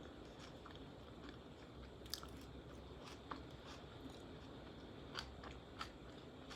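Quiet chewing of a salad, close to the microphone, with a handful of small sharp clicks scattered through.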